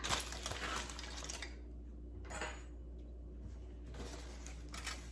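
Faint, scattered clinks and scrapes of cutlery against dishes.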